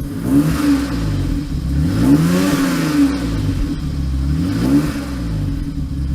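BMW 3.0 CSL's straight-six engine revved with repeated throttle blips, the pitch climbing and dropping back several times.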